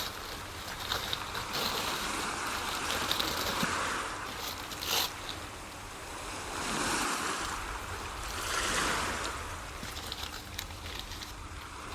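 Baking paper being peeled and crumpled off a baked chicken: crinkling and rustling that swells louder a few times, with small crackles.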